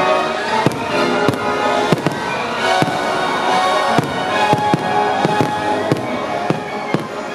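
Aerial fireworks shells bursting in quick succession, about a dozen sharp bangs spaced irregularly, roughly every half second, over loud music.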